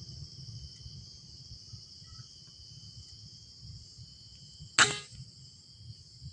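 A single air rifle shot, a sharp snap with a short ringing tail, about five seconds in. Steady high insect chirring runs underneath throughout.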